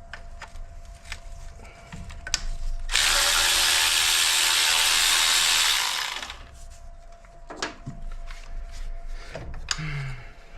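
A power tool runs steadily for about three seconds, set among scattered clinks and knocks of hand tools on the engine.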